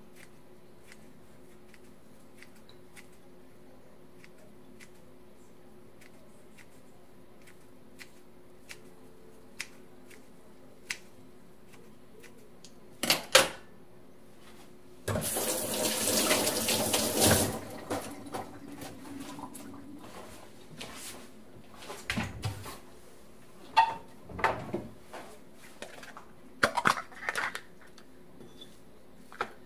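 Kitchen scissors snipping dried pollack strips with small, regular clicks. A sharp knock follows, then a tap runs into the sink for a couple of seconds, then come light knocks and clinks as the pieces are handled into a plastic container.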